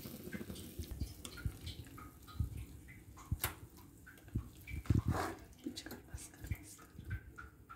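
A spatula scooping and scraping cooked potato and spinach out of a non-stick pan and dropping it into a stainless steel bowl, with scattered soft knocks of utensil on pan and bowl. The loudest knocks come about three and a half and five seconds in.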